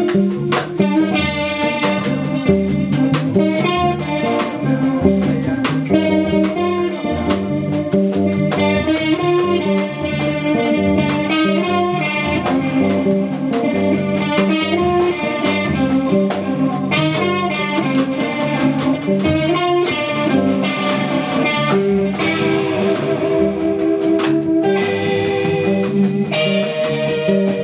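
A live band playing an instrumental piece: an electric bass guitar and a drum kit, with a busy line of fast plucked notes on top.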